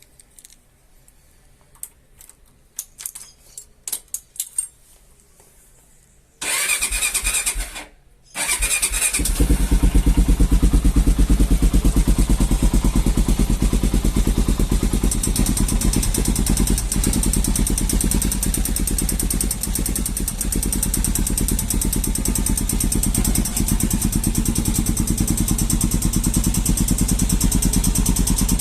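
Honda NX4 Falcon's single-cylinder engine started from cold. A few light clicks come first, then the starter cranks for about two seconds, there is a brief pause, and the engine catches and settles into a fast, steady idle. The raised idle and strange cold-start noise are, by a mechanic's account, the normal working of the engine's compression valve until it warms up.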